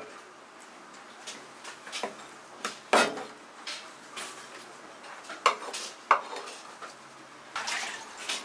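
Large kitchen knife working through a whole flounder on a plastic cutting board: scattered sharp knocks and clicks of the blade against the board, the loudest about three seconds in, two more a little past the middle, and a short cluster near the end.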